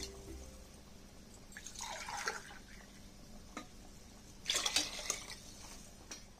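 Steel ladle stirring watery curry and rice in a pressure cooker: the liquid sloshes in two short bouts, the second louder, with a couple of light clicks of the ladle against the pot.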